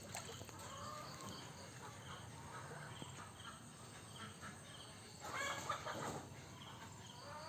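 Outdoor ambience of faint, regular chirps, about two a second, with a louder animal call about five seconds in.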